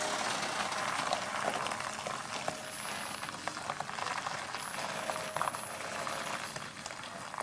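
Loaded log truck moving slowly over a gravel road: a steady, crackly noise of tyres on gravel, with faint whines coming and going.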